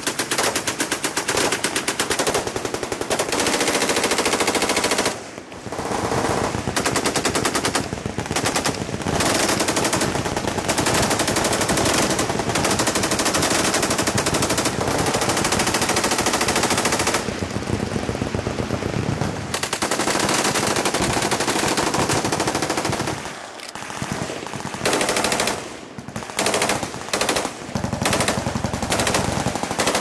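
Belt-fed machine guns firing long, rapid automatic bursts, almost without a break, with a few short pauses about five seconds in and in the last few seconds.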